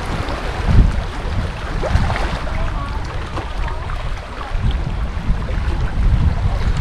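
Wind buffeting the microphone, a low rumble that swells and eases in gusts, over small waves lapping at a stony shoreline.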